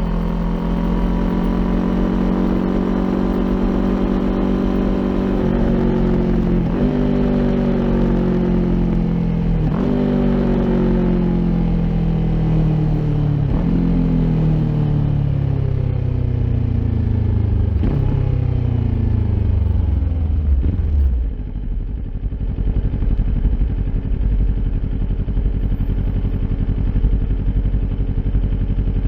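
Kawasaki Ninja 400's parallel-twin engine through an Akrapovic exhaust, its pitch falling steadily as the bike slows on the throttle. Several brief breaks mark gear changes. About 21 seconds in it settles to a low, steady idle.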